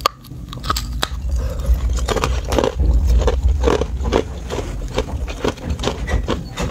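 Hard ice being bitten and chewed, a steady run of sharp cracks and crunches, two or three a second.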